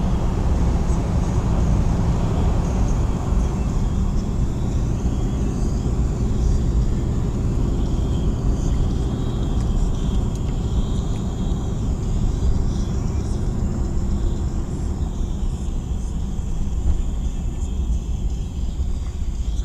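A car driving, heard from inside the cabin: a steady low rumble of engine and tyre noise on the road.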